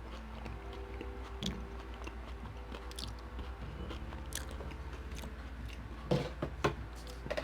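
Close-up chewing of poutine, with scattered crunches and a few louder bites about six seconds in.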